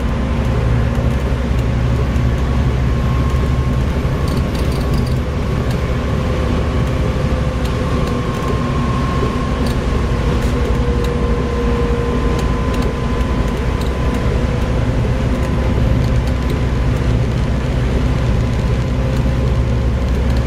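Volvo B7TL bus engine running steadily under way, a deep drone with a faint whine that drifts slightly in pitch and scattered light clicks and rattles.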